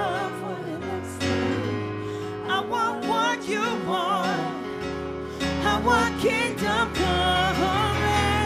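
Live church worship band in spontaneous worship: several singers with microphones sing wavering, free-flowing melodic lines over the band's sustained chords and bass.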